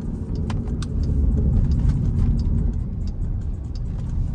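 Jeep Grand Cherokee Trackhawk's supercharged V8 running as the SUV drives, heard from inside the cabin as a steady low drone.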